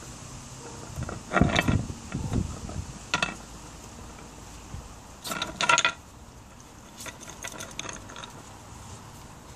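A hard toy knocking and scraping on slate paving stones as a puppy noses and paws at it: a clattering burst about a second and a half in, a short one near three seconds, the loudest one about five and a half seconds in, then lighter clicks.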